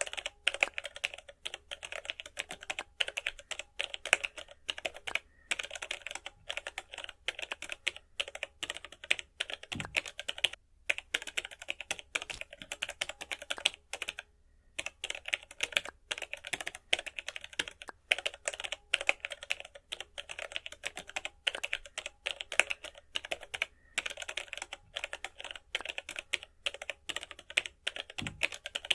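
Rapid computer keyboard typing, a dense run of clicks with brief pauses about ten and fourteen seconds in.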